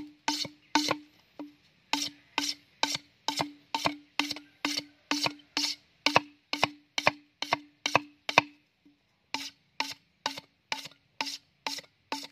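Machete blade striking down the side of an upright green bamboo tube, about three quick strokes a second, each knock ringing hollow in the tube. The strokes break off briefly about eight and a half seconds in, then carry on.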